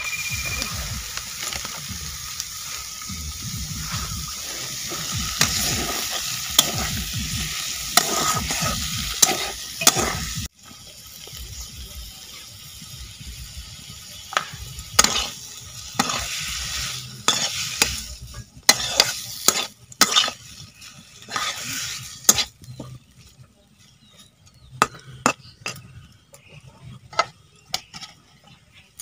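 Raw pork pieces frying in hot oil and spice paste in a metal wok, sizzling, with a metal spatula clicking and scraping against the pan as the meat is stirred. The sizzle drops off suddenly about ten seconds in, picks up again, then fades over the last few seconds, leaving only scattered clicks.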